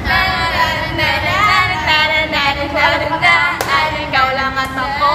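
A small group of young women singing a song together, with one short sharp click about three and a half seconds in.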